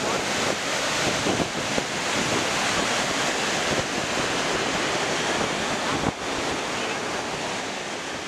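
Rushing whitewater of river rapids pouring over and between boulders: a steady, dense roar that grows quieter near the end.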